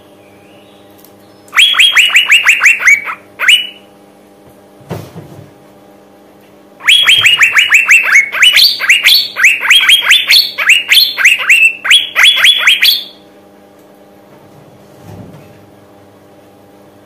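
Female Asian fairy-bluebird (cucak biru) calling in quick runs of sharp, falling notes, about seven a second: a short run near the start and a long run of about six seconds in the middle. It is the call a female in breeding condition gives to draw males, used to make male birds sing.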